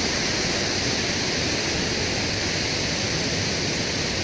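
Mountain waterfall falling from a great height onto rocks: a steady, even rush of water.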